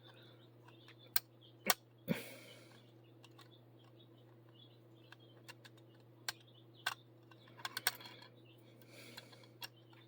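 Scattered small clicks and taps of plastic rotary-cutter parts being handled and fitted together, the sharpest two about a second and a half in, over a faint steady hum.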